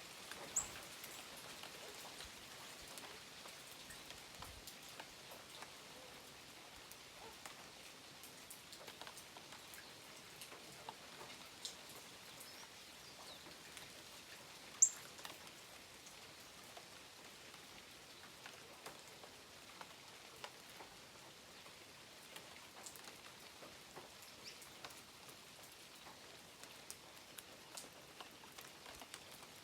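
Birds giving scattered short, high chirps over a faint steady hiss; one chirp, about halfway through, is much louder than the rest.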